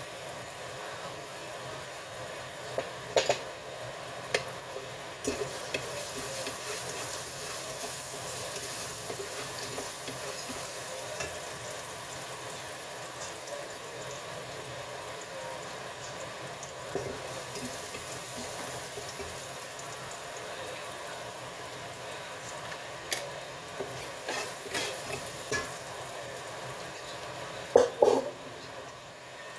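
Food sizzling in hot oil in a wok, a steady hiss. A few sharp clinks of a spatula against the wok, the loudest pair near the end.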